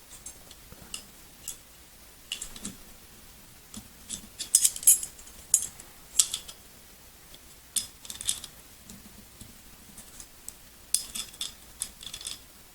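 Small steel pistol parts of a CZ 75 SP-01 being handled and fitted: irregular light metallic clicks and clinks as the trigger bar and other parts are worked into the frame, in several clusters.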